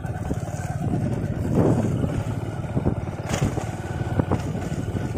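Motorcycle engine running steadily while riding a rough dirt track, with a few sharp knocks and rattles about three to four seconds in.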